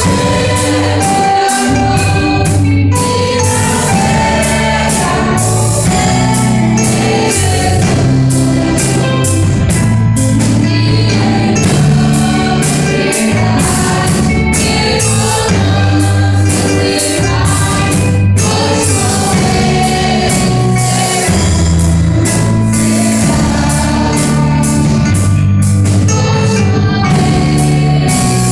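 Gospel hymn with singing over a full band accompaniment and a steady beat.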